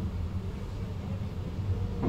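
VIRM double-deck electric train running along the track, heard from the driver's cab: a steady low rumble with a faint tone above it.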